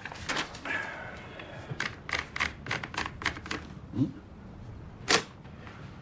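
Manual typewriter being handled as a sheet of paper is fed in and rolled into place: a run of irregular mechanical clicks and clacks, with one loud sharp clack about five seconds in.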